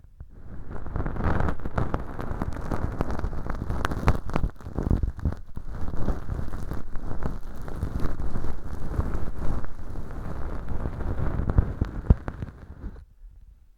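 Feather-tuft earpick (bonten) brushing and scraping inside an ear-shaped microphone packed with velcro fluff and dry fake earwax: a dense, muffled crackling rustle that starts just after the beginning and stops about a second before the end.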